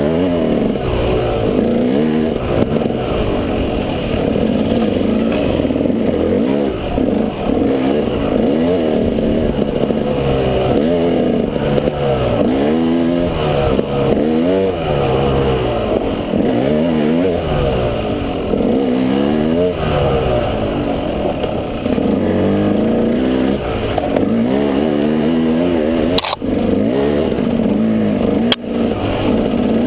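Off-road vehicle engine heard close up, revving up and down every second or two as the throttle is worked, with two sharp knocks near the end.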